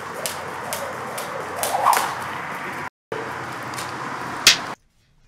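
Jump rope slapping the floor with each turn, a sharp tick about twice a second, with a short vocal sound about two seconds in. The sound drops out briefly near the middle, and a single loud sharp click comes near the end.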